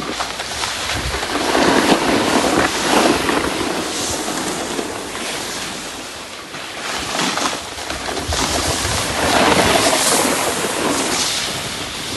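Snowboard sliding and scraping over packed snow, mixed with wind buffeting the microphone. The hiss swells and fades in surges as the board turns.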